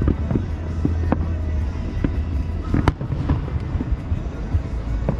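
Aerial fireworks going off in quick succession: many sharp crackles and bangs over a continuous low rumble, with one louder report about three seconds in.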